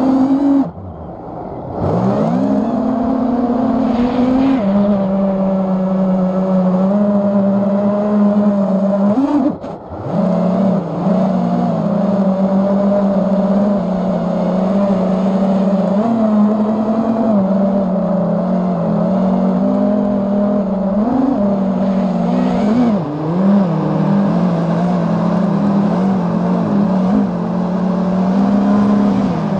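FPV racing quadcopter's motors and propellers buzzing at a steady pitch that wavers up and down with throttle, heard from on board. Twice, shortly after the start and about ten seconds in, the buzz drops away as the throttle is cut, then climbs back up.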